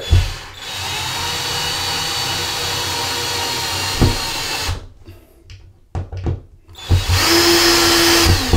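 Cordless screwdriver with a Phillips bit driving a screw through a metal mounting plate into a plastic drywall anchor. The motor runs steadily for about four seconds, a few knocks follow, and a second, shorter run comes near the end.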